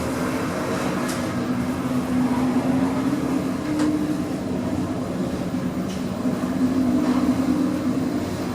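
Otis 2000 lift car (2 m/s) travelling upward at speed: a steady rumble with a low hum, and a few faint clicks.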